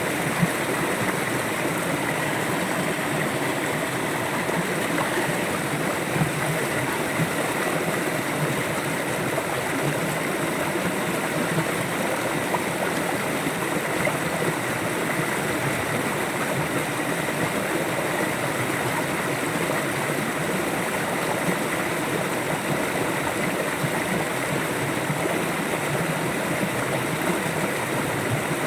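River water flowing steadily, an even rushing and gurgling.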